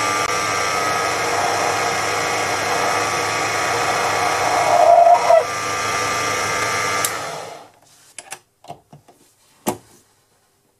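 Proxxon PD 250/E mini lathe running with a steady motor whine while machining a silver-steel blank, with a brief louder squeal about five seconds in. The lathe stops about seven and a half seconds in, and a few light clicks and taps follow.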